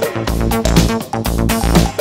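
Electronic dance music with a steady beat and pulsing bass.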